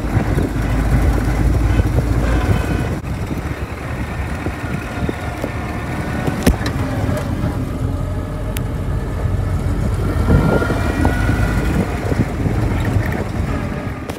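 Engine of an open-topped military vehicle running steadily as it drives along a gravel track, heard from on board, with two sharp clicks partway through.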